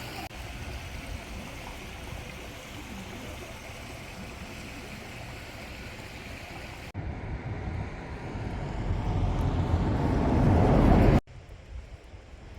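Steady rush of sea surf with wind on the microphone. About seven seconds in, the noise changes and swells much louder and deeper, then cuts off abruptly; a quieter rush follows.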